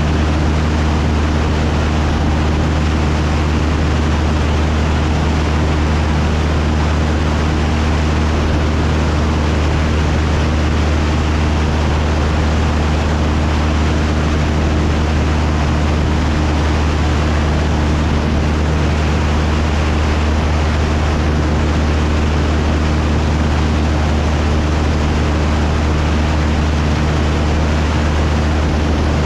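Cessna 172's piston engine and propeller running steadily in cruise flight: a constant low drone with airflow rush over it.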